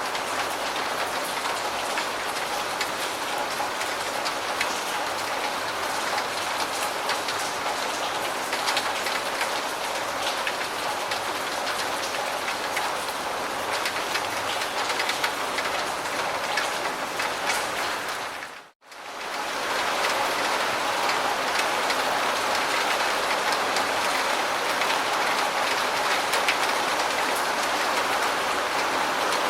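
Steady rain falling on surfaces: a dense hiss of rain with countless fine drop ticks. About two-thirds of the way through it fades out to near silence for a moment and fades back in a little louder, a loop or edit point in the recording.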